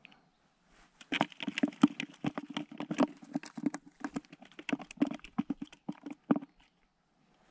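A freshly landed roach flapping and slapping, a fast irregular patter of strikes that starts about a second in and stops shortly before the end.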